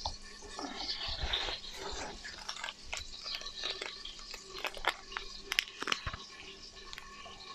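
Quiet kitchen handling: scattered small clicks and soft rustles as spice is shaken from a packet over a bowl of minced meat and onion.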